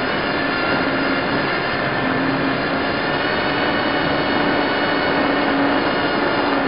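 Tiny Hubsan X4-clone quadcopter's four brushed motors and propellers whining steadily, picked up close by the onboard camera: several steady tones over a rushing hiss, the pitch wavering slightly as the motors hold it in the air.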